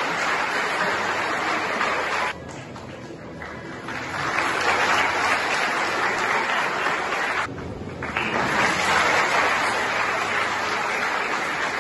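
Audience applauding, dipping down twice: once about two seconds in for over a second, and again briefly about seven and a half seconds in.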